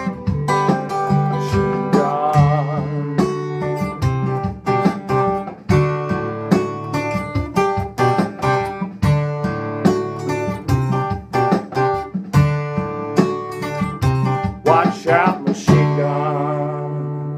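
Acoustic guitar strummed in a steady rhythm through the song's instrumental ending, closing on a final chord struck near the end that rings out and slowly fades.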